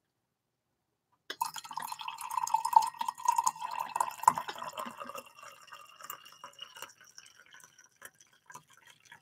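Hot tea poured from a teapot into a ceramic mug. The stream starts about a second in and runs steadily, then thins to a trickle and scattered drips near the end.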